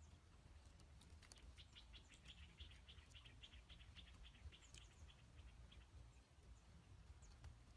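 Faint outdoor quiet with a small bird's quick chattering call, a rapid run of short high notes, about a second in, lasting a couple of seconds. A few faint clicks are scattered through it.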